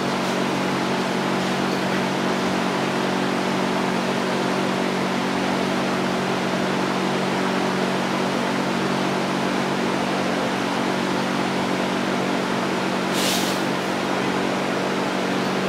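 Steady machine hum with a constant hiss that does not change, and a brief high hiss about thirteen seconds in.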